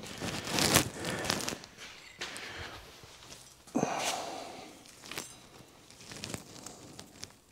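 Footsteps on a concrete shop floor, then scattered light clicks and knocks of small metal brake parts being handled at a UTV's front brake caliper.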